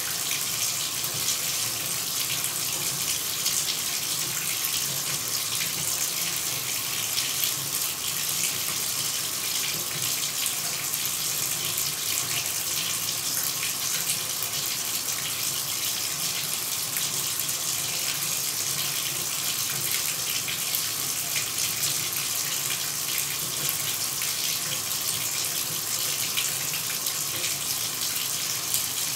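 Shower running: a steady, even spray of water hiss, strongest in the high range, with no change.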